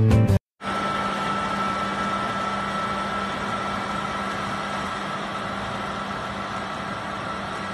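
Music cuts off, and after a short gap a large tractor runs steadily while pulling a wide rotary tiller through the soil. A low hum and a thin steady whine sit over the engine noise.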